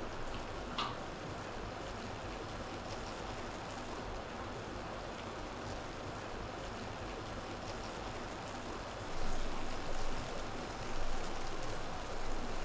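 Thin, water-rich flour, olive oil and water tuile batter sizzling and spattering in a small non-stick frying pan, a steady fine crackle like light rain that swells louder in waves over the last few seconds. The spattering is the water in the batter boiling off, which the chef calls the key to these lace tuiles.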